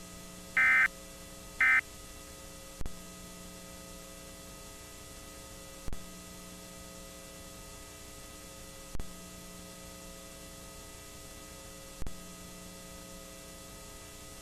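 Two short warbling data bursts of the Emergency Alert System end-of-message code, the last two of three, marking the close of the alert. Then a steady hum with a faint click about every three seconds.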